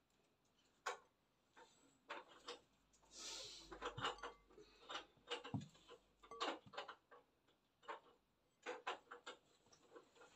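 Spatula scraping and tapping against a glass mixing bowl while folding macaron batter: faint, irregular clicks and soft scrapes.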